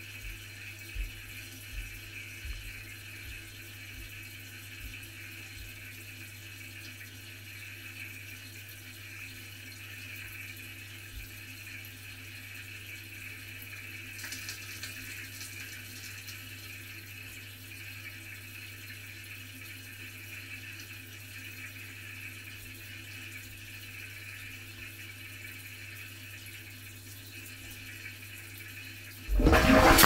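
Water filling the tub of a Miele dishwasher at the start of a cycle, heard from inside the machine: a steady hiss of inflowing water over a low, even hum. Near the end, loud irregular splashing starts suddenly.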